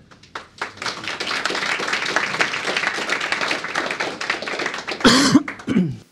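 An audience applauding with many hands clapping for about five seconds. A short, loud burst with a bending pitch comes near the end.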